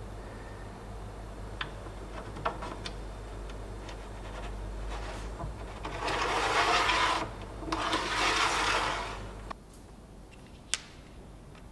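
A few light clicks, then two rubbing slides, each about a second and a half long, of a wooden part being pushed by hand against the oak cabinet's woodwork.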